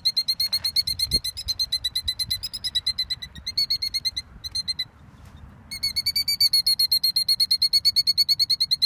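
Killdeer calling in rapid alarm, a fast run of high, sharp notes at about seven a second that breaks off for a second and a half about halfway through and then resumes: the parent bird's alarm at people near its nest of eggs.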